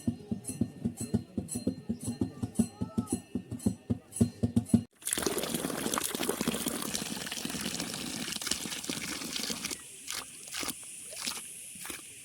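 Music with a quick steady beat, cut off abruptly about five seconds in by a steady rush of running water. About five seconds later the water sound drops away into a few scattered light knocks.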